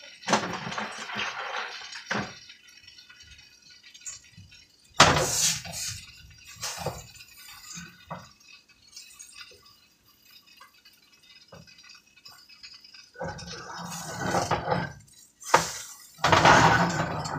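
Kitchen utensil scraping and knocking against a frying pan while pancakes are cooked, in several separate bursts with quiet gaps between, the sharpest about five seconds in and a longer busy stretch near the end.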